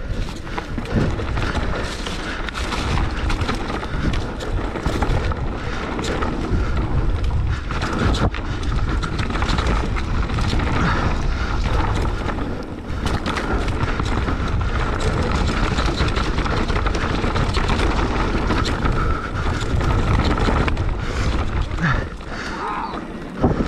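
Wind buffeting the camera microphone of a moving mountain bike, with the tyres and frame rattling over a bumpy dirt trail. It runs at a steady level with many small knocks and dies down briefly near the end.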